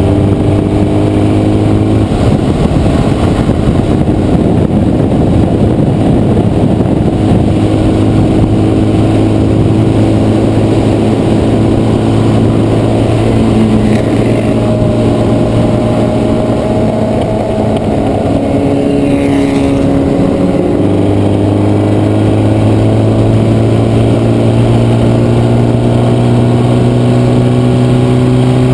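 Formula Vee race car's air-cooled Volkswagen flat-four engine running hard, heard from the cockpit with wind noise over it. There are gear changes about two seconds in and about twenty-one seconds in, and the engine note climbs steadily toward the end. Another race car's engine passes close alongside in the middle.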